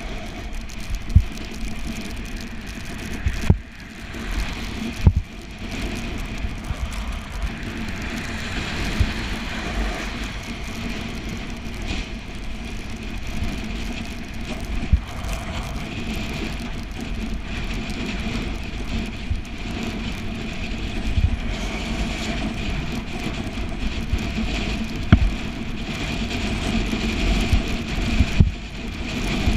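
Bicycle ride on a wet road in the rain: a steady rush of tyre and road noise, broken by a few sharp low knocks.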